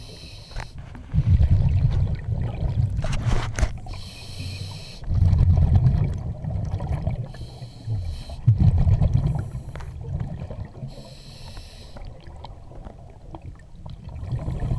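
A scuba diver breathing through a regulator underwater: a short hiss on each inhale, then a loud low rumble of exhaled bubbles, repeating over several breaths.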